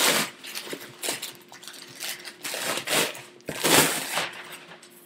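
Packing material rustling and crinkling in several uneven bursts as a wrapped parcel is handled and pulled out of a cardboard shipping box.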